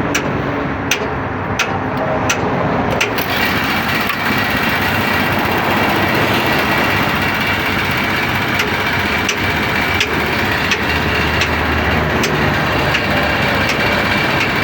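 Air compressor running with a light tick about every three-quarters of a second. About three seconds in, a loud steady hiss of compressed air starts as a tyre is being inflated, and it keeps going.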